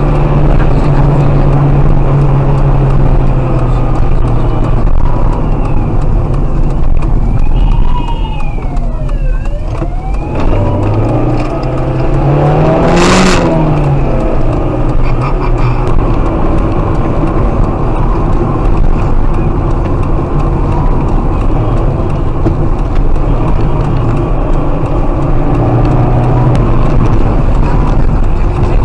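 Steady car engine and road noise heard from inside a car driven fast. A siren wails up and down in pitch about eight to ten seconds in, and a brief loud rush of noise comes about thirteen seconds in.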